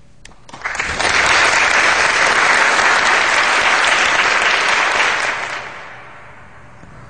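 Audience applauding, swelling in within the first second, holding steady, then dying away after about five seconds.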